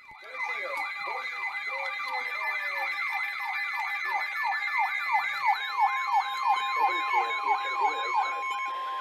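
Electronic emergency alert tones: a siren-like sweep falls in pitch about three times a second over steady high tones. About halfway through, a single steady tone like the 1050 Hz weather-radio warning alarm joins it, signalling a flash flood warning.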